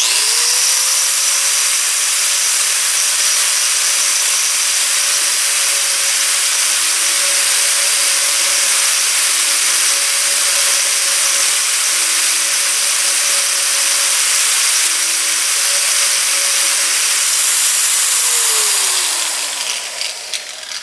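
Electric angle grinder spinning up and grinding the edge of a hardened steel lawnmower blade, with a steady high whine and a hissing grind. About eighteen seconds in it is switched off and its whine falls as the disc winds down.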